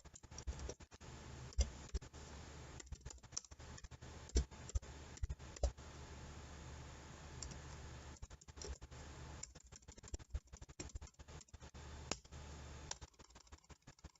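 Computer keyboard keys clicking in irregular runs as a command line is typed, over a steady low hum.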